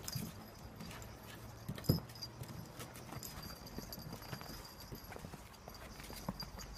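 Light, scattered taps and scrabbles of small puppies' paws on a plastic toddler slide and foam play mats, with one louder knock about two seconds in.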